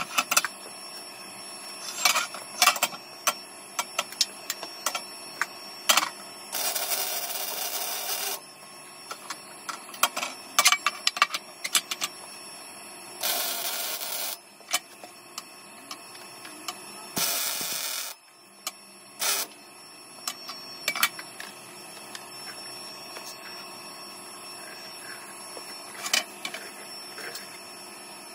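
Welding on a car frame: three bursts of welding arc, each one to two seconds long, with sharp clicks and knocks between them.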